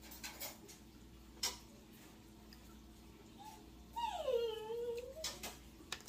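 A single whimpering whine about four seconds in, falling in pitch and then holding for about a second. A few light clicks come earlier.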